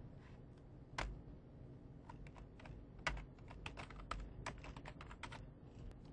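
Computer keyboard typing: irregular key clicks, several a second, with a couple of louder strikes about one and three seconds in.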